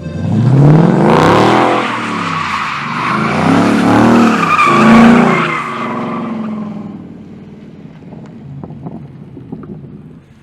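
2014 Mustang GT's 5.0 L V8 revving up and down hard several times with the tires squealing, as in a donut. The sound fades away over the last few seconds.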